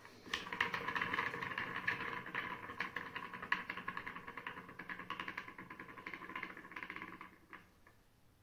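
A hand-spun spoked wheel whirring on its hub, a dense rattle of fine ticks that fades as the wheel spins down and stops about seven and a half seconds in.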